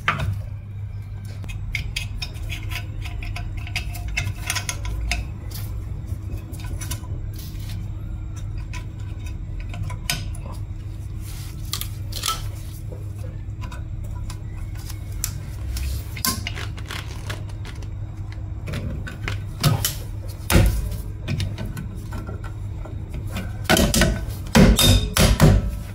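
Light metallic clicks and clinks of hand tools and spring hardware on a drum brake's shoes and backing plate, over a steady low hum. Near the end comes a denser run of louder clicks as a tool works at the shoe adjuster.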